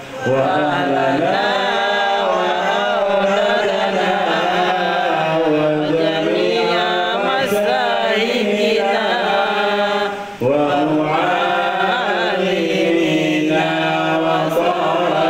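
A man chanting a shalawat, an Islamic devotional invocation of blessings on the Prophet Muhammad, into a microphone over a PA speaker. He sings it in long held notes that wind up and down, and takes a breath about ten seconds in.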